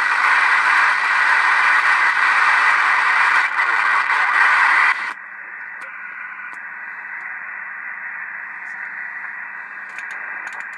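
Ham International Jumbo radio's speaker hissing with static on an empty channel while the channel knob is turned. About five seconds in the hiss drops suddenly to a quieter, duller hiss, with a few faint clicks near the end.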